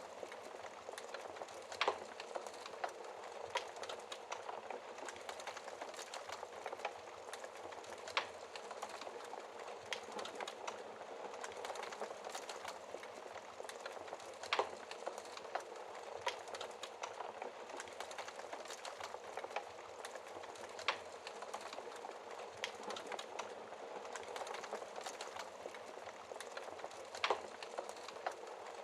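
Fireplace fire crackling steadily, a dense patter of small crackles with a louder sharp pop about every six seconds.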